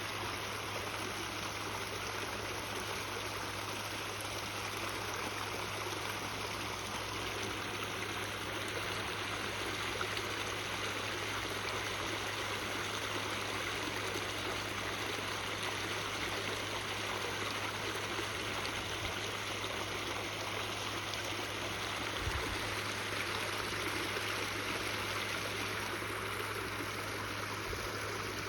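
Backyard waterfall, water splashing and trickling steadily, with a steady low hum underneath.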